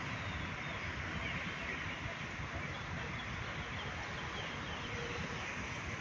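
Steady outdoor background noise with a low rumble, like distant city traffic or wind on the microphone, and a few faint high bird chirps.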